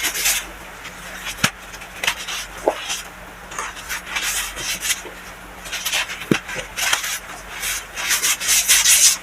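Soft crushing and scraping of baking soda powder: an irregular run of short, gritty rubbing strokes with a few sharp clicks, densest and loudest near the end.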